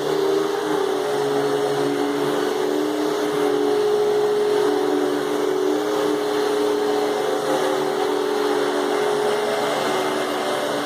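Hoover Spectrum canister vacuum running steadily with its power nozzle attached: a steady whine over rushing air.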